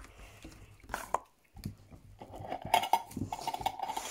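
Slime and its plastic tub being handled: irregular small clicks and squelchy crackling, much busier in the second half.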